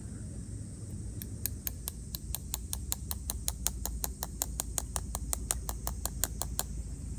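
A fast, even run of sharp clicks, about five a second, starting about a second in and stopping shortly before the end, over a steady low rumble.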